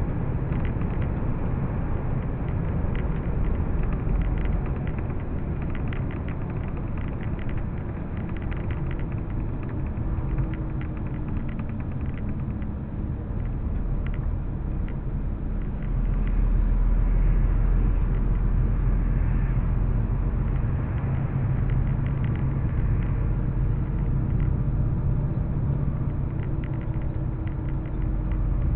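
Cabin noise of a vehicle driving at motorway speed: a steady low rumble of engine and tyres on the road, which grows louder about halfway through.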